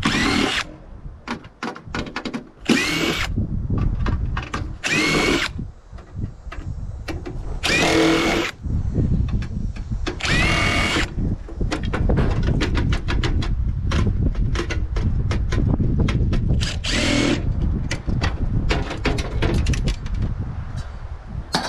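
Power drill driving screws out of a scrap microwave's casing in about six short bursts, each spinning up in pitch, with knocking and rattling of metal in between.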